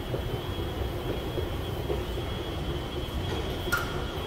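Subway station ambience: a steady low rumble with a faint constant high whine above it, and one short sharp click near the end.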